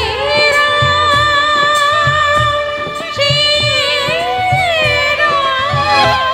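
A woman singing a Rajasthani devotional bhajan into a microphone, with melodic band accompaniment and a low drum keeping a steady beat.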